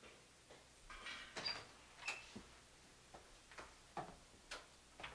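Faint household movement: a door is handled with a few clicks, then footsteps walk on at about two steps a second.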